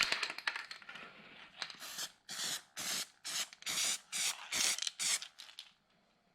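Aerosol spray paint hissing from a can in about eight short, rhythmic bursts, coating the inside of a freshly fabricated steel patch panel.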